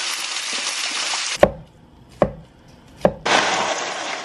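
Chicken broth pouring from a carton into a pot of chopped vegetables, a steady splashing hiss that cuts off about a second and a half in. Three sharp knocks follow, then dry rotini pasta pouring from its box into the pot near the end.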